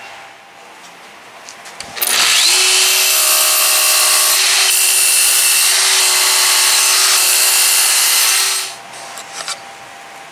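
Makita sliding miter saw switched on about two seconds in, its blade cutting a small block of wood, running steadily for about six and a half seconds before it stops; a few light clicks before and after.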